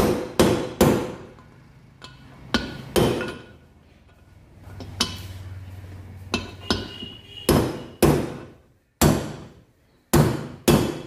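Hammer striking metal engine parts, a dozen or so sharp ringing blows in groups of two or three with pauses between, as bearings are tapped into the motorcycle crankcase.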